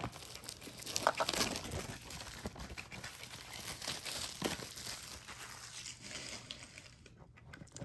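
Plastic wrapping and card-box packaging crinkling and tearing as it is opened by hand, in irregular crackles that thin out near the end.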